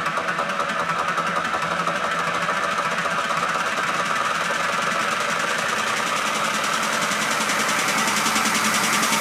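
Techno track played loud, here a build-up section of a fast, rattling machine-like pulse that grows brighter and denser toward the end.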